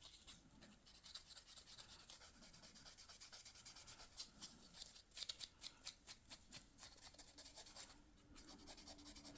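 Faint, quick, scratchy rubbing strokes on walnut revolver grips, working the old finish off by hand.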